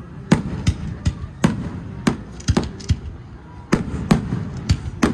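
Fireworks bursting in an irregular string of about ten sharp bangs, each trailing off in a brief low rumble.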